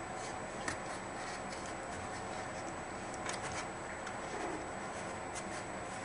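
Small puppies moving about, with scattered light clicks and scratches, several close together about halfway through, over a steady hiss.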